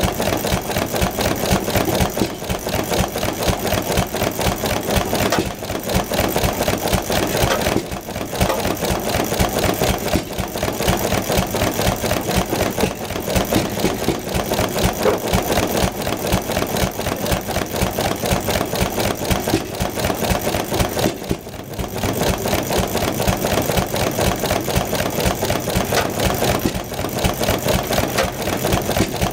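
McCormick-Deering Model M 1½ hp single-cylinder hit-and-miss engine running and ticking away in a rapid, steady rhythm, dipping briefly a couple of times.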